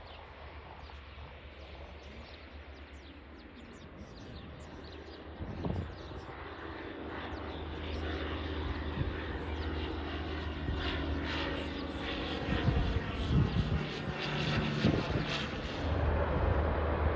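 Engine drone of a light propeller aircraft on approach to land, a steady tone that starts about five seconds in and grows louder. Gusts of wind buffet the microphone in the later part.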